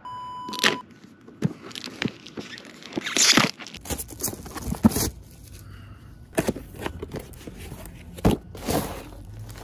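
A short electronic glitch tone at the very start, then a cardboard product box being opened and emptied by hand: irregular rustling, scraping and crinkling of cardboard and plastic packaging, with a few sharp taps.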